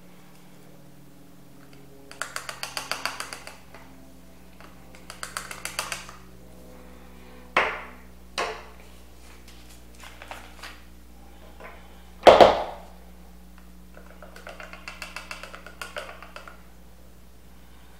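Cayenne pepper being shaken from a plastic spice jar into a plastic measuring cup: three runs of fast, even rattling ticks, about ten a second. Between them come a few sharp knocks and clicks of the jar and cup, the loudest about twelve seconds in.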